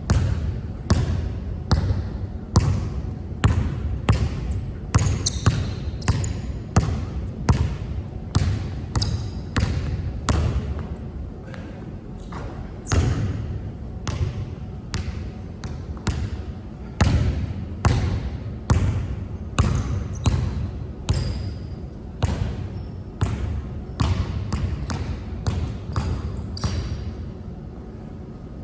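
Basketball dribbled repeatedly on a hard court: a steady run of sharp bounces, about two a second.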